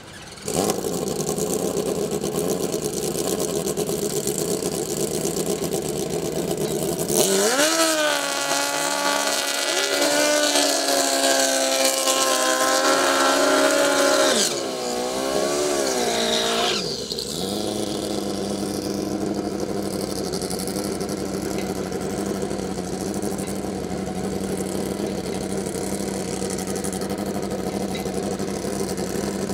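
Two drag-racing motorcycles' engines at the starting line: running loudly from about half a second in, then revved hard and held at high rpm for about seven seconds during burnouts, the pitch dipping and rising before dropping back to a steady idle about seventeen seconds in.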